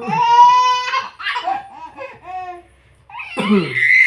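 Baby laughing and squealing: a long high-pitched squeal at the start, then a few short laughs, a brief pause, and another burst of laughter near the end.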